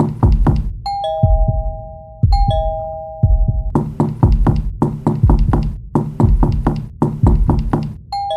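Two-tone ding-dong doorbell chime, a higher note falling to a lower one, rung twice in quick succession and again near the end. Between the rings comes rapid knocking at about four knocks a second.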